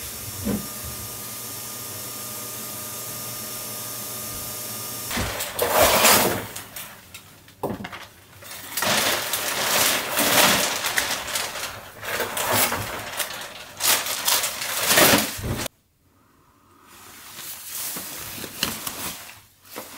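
A thick black plastic garbage bag rustling and crinkling in repeated loud bursts as it is handled and filled, starting about five seconds in after a few seconds of steady hiss, and cutting off abruptly about three-quarters of the way through.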